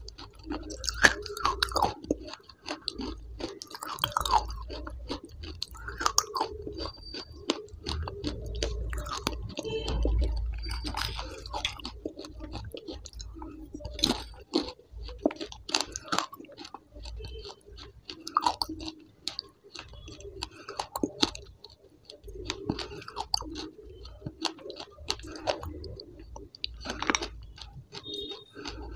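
A person chewing and crunching food, with many sharp, irregular mouth clicks.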